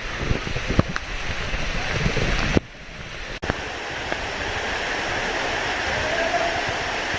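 Steady rushing roar of a waterfall, with a few sharp knocks early on and a brief quieter dip about two and a half seconds in.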